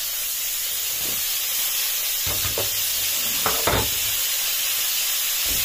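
Small green chili peppers sizzling in hot oil in a frying pan, a steady hiss, with a few soft knocks about two to four seconds in.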